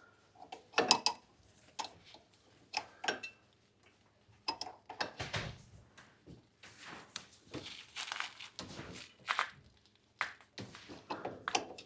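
Wrench clinking and scraping on a hydraulic lock-out valve fitting as it is turned a little at a time into the tractor's rear lift cylinder. The sound is a series of irregular short metal clicks and scrapes.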